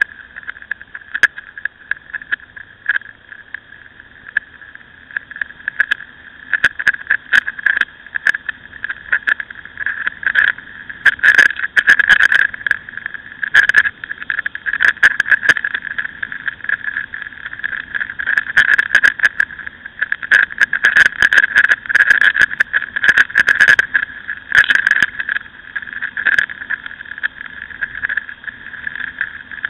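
Ducati Scrambler motorcycle riding along, heard through a camera mounted on the bike: a steady, high, narrow drone with wind noise. From about six seconds in, bursts of sharp clicks and rattles come and go over it.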